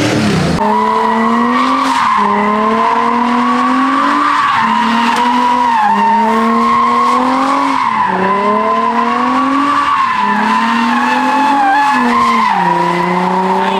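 Nissan 350Z's V6 revving high during donuts, its pitch climbing and falling back about every two seconds, over a steady high tire squeal. Near the end the revs drop and hold lower.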